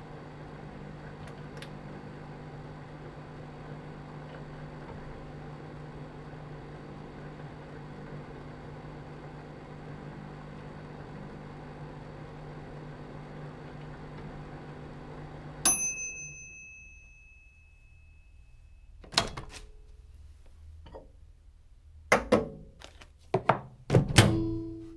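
Microwave oven running with a steady hum, then shutting off with a click and one long high beep about two-thirds of the way in, signalling the end of the heating cycle. It is followed by a series of sharp clunks and clinks as the door is opened, a dish is taken out and the door is shut, the loudest near the end.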